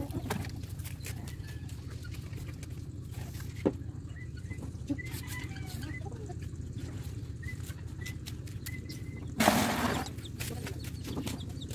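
Chickens clucking faintly in the background, with a few short high chirps. About nine and a half seconds in, a short loud rush of water poured from a dipper over the dog being bathed.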